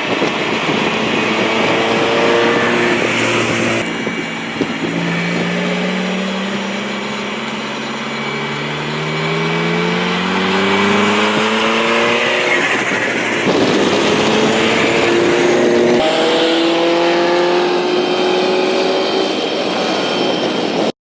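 Sports car engine accelerating hard through the gears: its note climbs, drops at each upshift and climbs again, over several runs. The sound changes abruptly about four seconds in and again around sixteen seconds, as between separate passes, then stops suddenly near the end.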